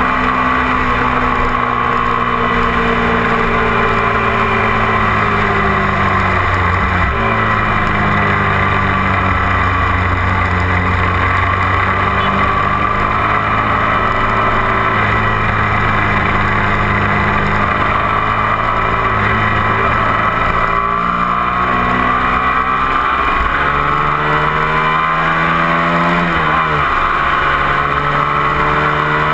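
A 250 cc sport motorcycle engine running at road speed, heard from a camera mounted on the bike, with wind rushing over the microphone. The revs sag and dip about a quarter of the way in, then climb steadily over several seconds and drop sharply at a gear change near the end.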